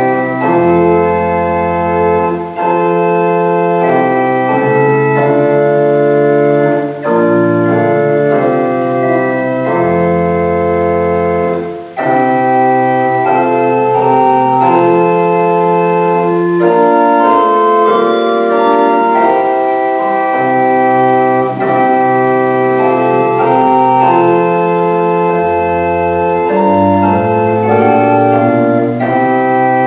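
Church organ playing a slow piece in several parts, with sustained chords and deep bass notes coming in a few times. Brief breaks fall between phrases, the longest about twelve seconds in.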